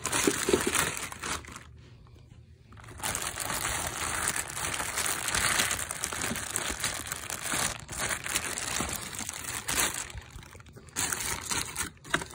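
Clear plastic packaging bag crinkling and rustling as a vacuum power head is pulled out of it by hand, with brief lulls about two seconds in and near the end.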